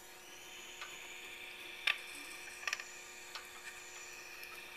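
Faint steady hiss of a small oxygen-propane torch flame worked into the bore of a spinning acrylic duck call barrel, over the steady hum of a Jet mini lathe running at 500 RPM. A few light clicks, the sharpest about two seconds in.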